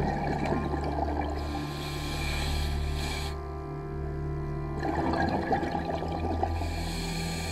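Scuba diver breathing through a regulator underwater: bubbly gurgles of exhaled air at the start and again about five seconds in, with the hiss of inhalation between them, over a steady droning hum.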